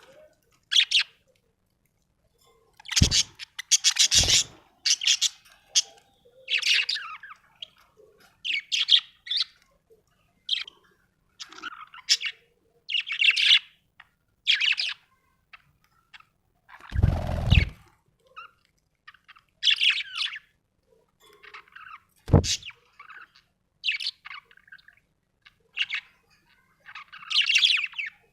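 A budgerigar chirping and warbling in quick, short bursts that the uploader hears as happy chatter. A few low knocks or bumps break in, the longest about two-thirds of the way through.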